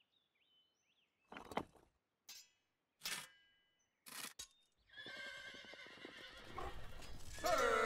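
Four separate knocks of stone blocks being set on a wall. Then a clatter of galloping hooves builds up, and near the end several horses neigh loudly together.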